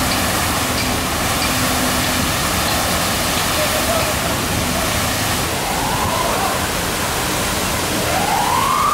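Water gushing from a sheared-off fire hydrant, a loud steady hiss of spray. Near the end a siren starts up, its wail rising in pitch.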